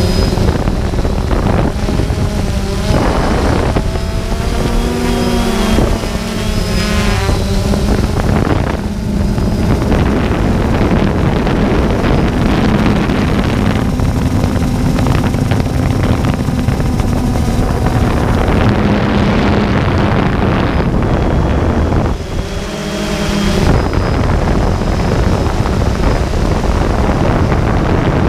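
Multirotor drone's electric motors and propellers humming, their pitch rising and falling as the throttle changes, with wind buffeting the microphone.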